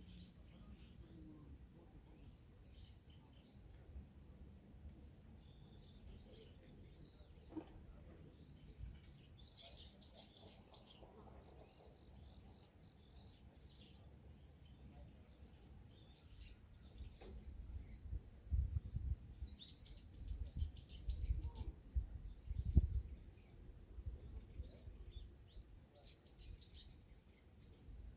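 Crickets chirping in a steady high-pitched chorus, with wind buffeting the microphone in low rumbling gusts about two-thirds of the way through.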